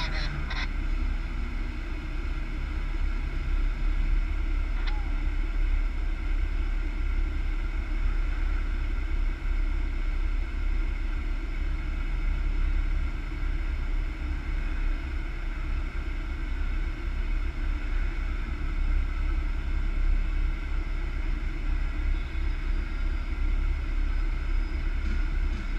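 Vehicle driving steadily at road speed: a constant low rumble of engine and tyre noise with no change in pace.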